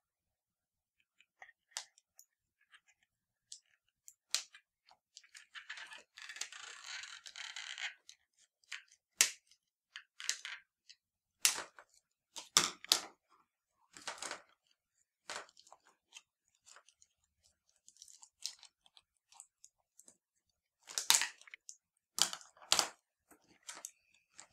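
Scissors snipping and fingers working a fashion doll free of its cardboard-and-plastic packaging: scattered sharp snips and clicks, with a two-second stretch of rustling about six seconds in and a cluster of louder snaps near the end.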